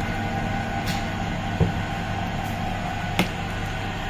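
Motorised clay plate-making machine running steadily, its motor humming as the clay plate spins on the mould under the die arm. Two light knocks come through, a little over a second and a half and about three seconds in.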